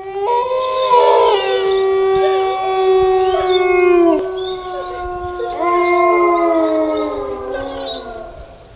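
Wolf howling: two long, steady howls, each falling away in pitch at the end, the second beginning about five and a half seconds in.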